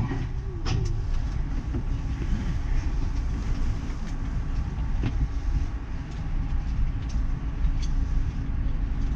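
Uijeongbu light rail train running between stations, heard from inside the car: a steady low rumble of the rubber-tyred VAL train on its guideway, with a few faint steady tones and a few light clicks.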